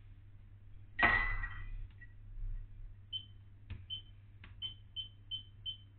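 Touch controls of a glass-top electric hob: a beep with a short clatter about a second in, then short high-pitched beeps with a couple of sharp taps, settling into an even run of about three beeps a second, as the heat is stepped up to maximum.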